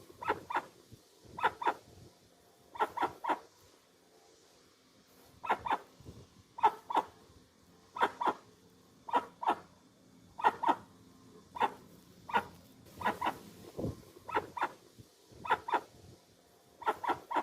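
Dusky-legged guan (jacuguaçu) calling: short, bark-like calls in quick twos and threes, repeated every second or so.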